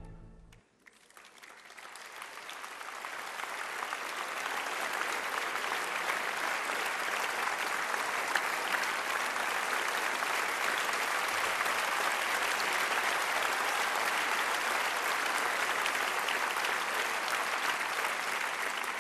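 Audience applause: a dense, even clapping that swells over the first few seconds and then holds steady.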